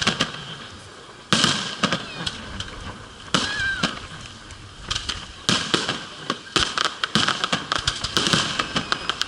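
Fireworks display: shells bursting overhead with loud bangs that echo away, followed by a dense run of crackling reports near the end.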